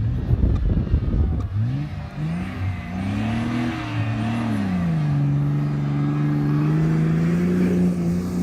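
An off-road 4x4's engine revving hard as it drives up a sand dune. After a low rumble, the engine pitch climbs in a few quick steps, drops back about halfway through, then holds steady at high revs.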